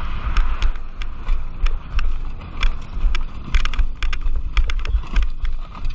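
Heavy wind buffeting the microphone, with a run of sharp, irregular knocks and clatter as a quad bike tumbles and slides down a steep dirt slope.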